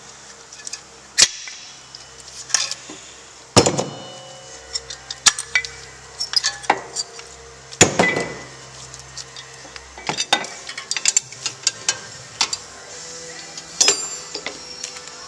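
Irregular metallic clicks and clanks as brake caliper parts and hand tools are handled at a car's front brake. A few louder knocks stand out, two of them ringing briefly.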